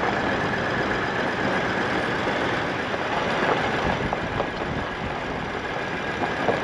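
Toyota LandCruiser 79 Series driving along a rough dirt track, heard from inside the cab: a steady mix of engine and tyre noise.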